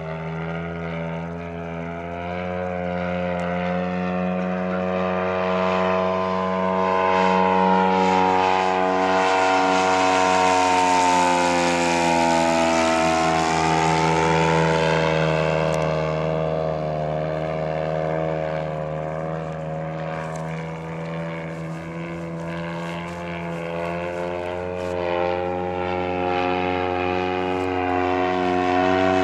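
Engine and propeller of a giant 45% scale Decathlon RC airplane in flight. The note swells and climbs in pitch as the plane comes close around the middle, then slides down in pitch and eases off as it passes by, and grows louder again near the end.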